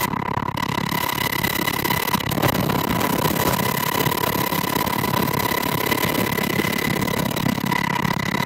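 UH-60 Black Hawk helicopter in flight, heard from inside its open cabin: steady rotor and twin-turbine noise with a constant high whine.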